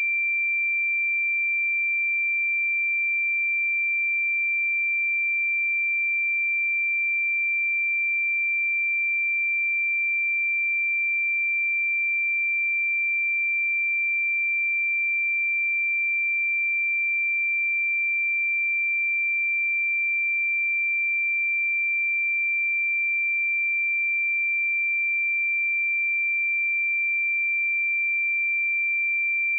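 A pure 2357 Hz sine-wave test tone, held steady at one pitch and level.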